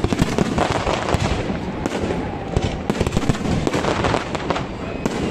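Fireworks display: a dense, continuous barrage of bangs and crackles, many reports a second with no pause.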